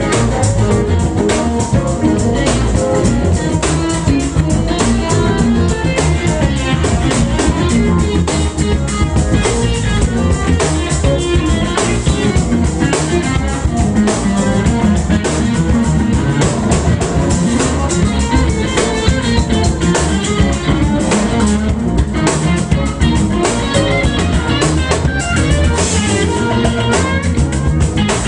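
Live band playing loud, continuous music: electric guitar over a drum kit keeping a steady beat.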